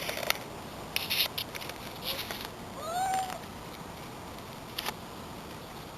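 Domestic cat: a brief noisy sound about a second in, then one short meow that rises and falls in pitch about three seconds in.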